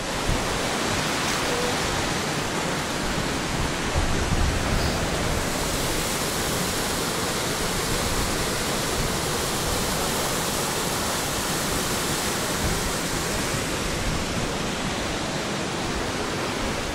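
Steady rush of flowing water, an even unbroken noise with no pauses or changes.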